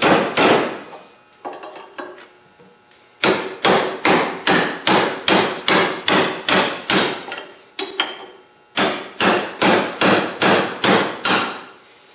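Hammer driving a steel chisel against the wheel bearing race on a 1995 Honda Civic front hub, in quick runs of sharp metal blows about two to three a second, with a gap of about two seconds near the start and a short one about eight seconds in. The torch-cut race is starting to loosen on the hub.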